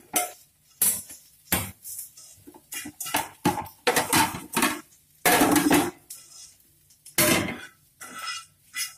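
Cookware clattering: a spatula knocking and scraping on a frying pan and against plates and a bowl as omelette is served from the pan. Irregular sharp knocks and short scrapes, the loudest a longer scrape about five seconds in.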